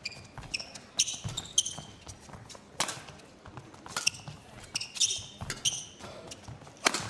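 Badminton rally: rackets striking the shuttlecock several times, the sharpest hit near the end, with shoes squeaking on the court between the shots.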